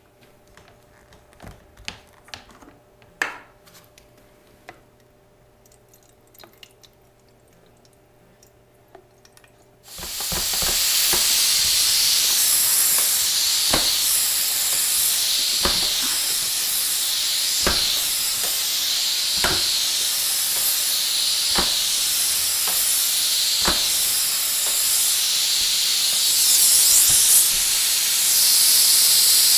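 Shark Pocket Steam Mop putting out steam: a loud, steady hiss starts suddenly about a third of the way in. A light knock and a swell in the hiss come about every two seconds as the mop is pushed back and forth. Before the hiss there are only faint handling clicks.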